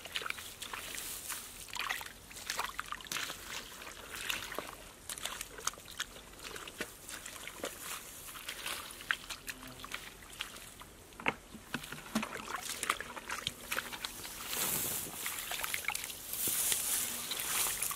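Hands digging and scooping through wet mud and shallow muddy water, a run of irregular wet squelches and sloshes that grows thicker and louder in the last few seconds.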